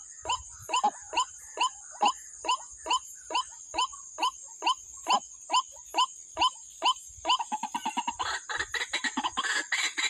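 White-breasted waterhen calling: a run of short, loud falling 'wak' notes, about two a second, which quicken into a rapid chatter about seven seconds in and give way to rustling through grass, over a steady high-pitched hum.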